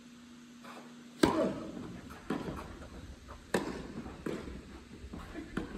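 Tennis ball struck by rackets and bouncing on an indoor court during a rally: about five sharp pops, the first and loudest about a second in, each with a short echo from the hall.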